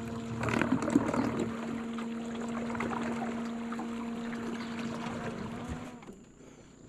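Small boat motor running with a steady hum as the boat moves through water, with a few splashes and knocks in the first second and a half. About six seconds in the hum cuts off and it goes much quieter.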